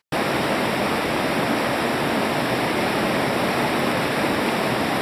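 River rapids: water rushing steadily over and between boulders, after an instant's dropout at the very start.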